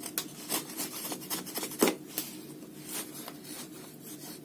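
Gerber Bear Grylls Scout folding knife blade carving wood in short, uneven scraping strokes, one sharper cut about two seconds in.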